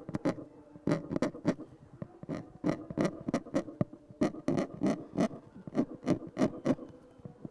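Steel engraving stylus scratching lines into a hardened lacquer surface in short, quick strokes, about three a second.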